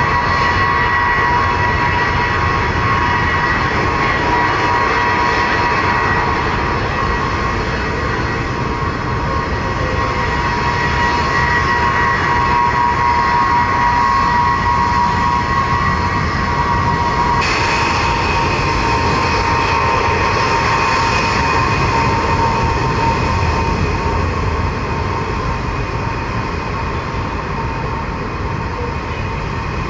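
Ilyushin Il-76 jet engines running loud and steady, a continuous rush with a high turbine whine. About seventeen seconds in, the whine abruptly jumps to a different pitch.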